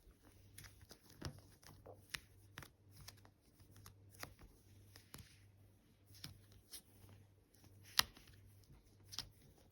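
Hands kneading and mixing stiff, clay-like slime, with faint scattered clicks and small bubble pops; one sharper pop about eight seconds in.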